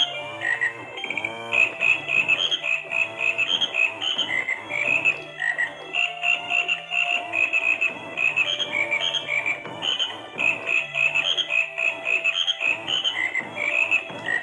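Battery-powered animated toy frog running: its built-in electronic tune of short beeping notes and croaks plays while its motor buzzes as the head spins side to side.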